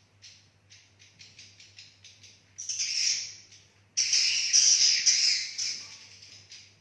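Edible-nest swiftlets calling in a roosting ('inap') call: a run of short quick chirps, about four a second, then two louder stretches of dense twittering, the first about two and a half seconds in, the second from about four seconds to near the end.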